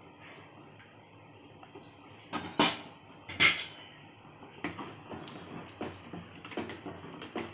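Two loud metal clanks about two and a half and three and a half seconds in, then a steel spoon stirring a thick milky poha payasam, clinking and scraping against the sides of a stainless steel pot every half second or so.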